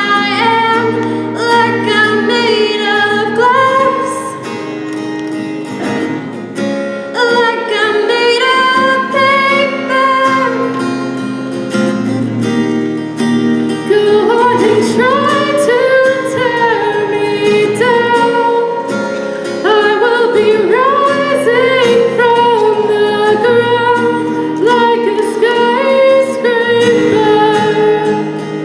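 Music: women's voices singing a pop ballad over sustained accompaniment.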